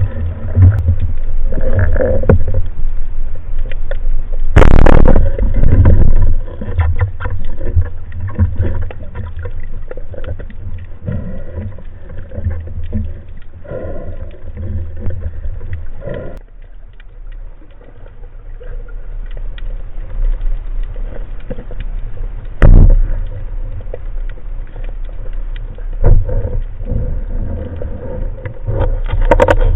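Muffled underwater sound picked up through a waterproof camera housing on a spearfishing dive: water rushing and a steady low rumble, broken by a few sharp knocks.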